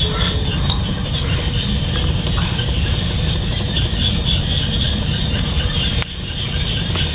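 Steady insect chorus, a pulsing high drone, over a loud, steady low rumble, with a few faint clicks and a brief drop in level about six seconds in.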